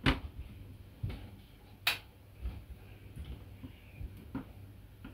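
Sparse light clicks and knocks of small plastic and metal model parts being handled on a cutting mat as the reactor platform is picked up and turned, the sharpest near the start, about a second in and near two seconds, softer ones after. A faint steady low hum runs underneath.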